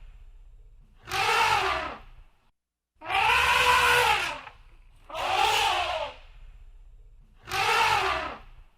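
Elephant trumpeting: four separate calls, each about a second long, every one rising and then falling in pitch.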